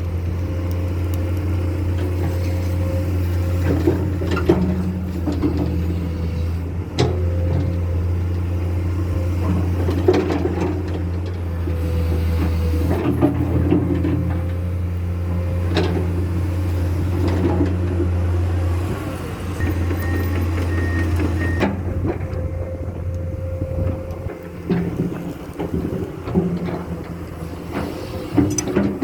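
Komatsu excavator's diesel engine running steadily under work, with occasional sharp knocks. The low drone eases off about three quarters of the way through.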